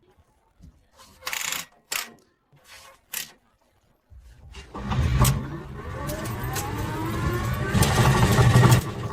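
Electric rickshaw's drive motor and rear axle running up to speed: a whine rising steadily in pitch over about four seconds over a low rumble. A few short clunks come first. This is the unusual running noise being investigated on the e-rickshaw.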